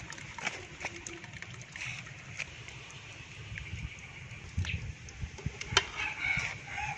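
Liquid trickling and sloshing as fermented fish (mắm) is strained for soup broth, with scattered small clicks and knocks.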